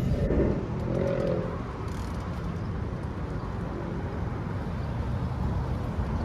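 City street ambience: a steady rumble of passing road traffic, a little louder in the first second or so.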